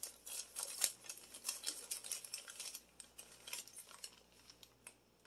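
Paper store receipts rustling and crinkling as they are handled and shuffled, in quick irregular crackles that die away near the end.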